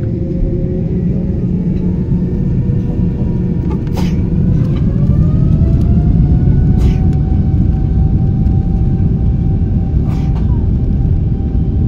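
Jet airliner's turbofan engines heard from inside the cabin, spooling up for the takeoff roll. About four seconds in, a whine rises in pitch and then holds over a heavy rumble that grows louder. A few sharp knocks come as the aircraft rolls.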